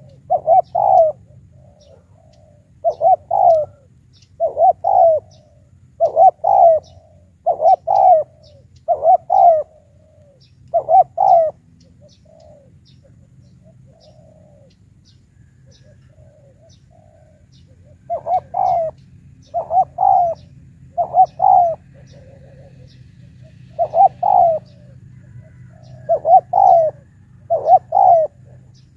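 Spotted dove cooing: short paired coos repeated about every second and a half, breaking off for about seven seconds midway before starting again.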